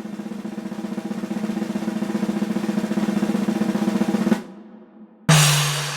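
Snare drum roll that builds steadily louder for about four seconds and stops sharply. About a second later comes a single cymbal crash with a low drum hit, ringing out and fading: a drum-roll-and-crash fanfare effect.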